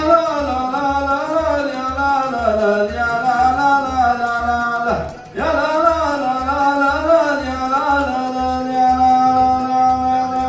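A singer chanting a drawn-out melodic line in the 'ya la la la' style of Arabian sung poetry, the pitch wavering up and down. The voice breaks off briefly for breath about five seconds in, then holds one long steady note from about eight seconds in. A low beat pulses about twice a second underneath.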